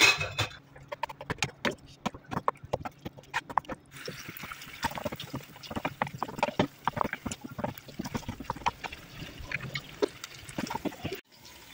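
A spatula clicking and scraping against a non-stick frying pan as chicken pieces are stirred in sauce, with a loud knock at the start. From about four seconds in, a steady sizzle joins as the sauce reduces and the chicken browns into a glaze.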